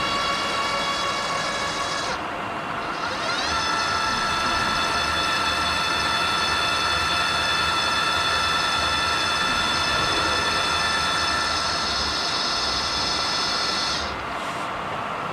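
Machine-tool motor running with a steady whine made of several tones. About two seconds in it ramps up to a higher speed over a second or so, holds there, and winds down near the end.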